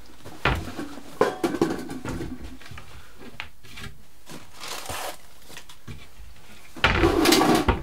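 Objects being handled and rummaged through on a workbench while a sanding block is fetched: scattered knocks and rustles, with a louder stretch of rustling and scraping near the end.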